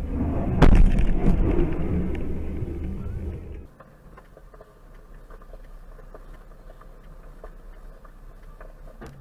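A runaway truck wheel strikes the camera car with a sharp bang about half a second in, amid loud road and engine rumble that fades over the next few seconds. After an abrupt cut comes a much quieter steady in-cab engine drone with faint ticks.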